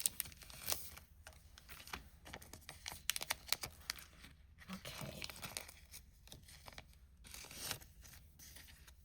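Thin plastic card sleeves crinkling and rustling in short, irregular scrapes as trading cards are slid into them.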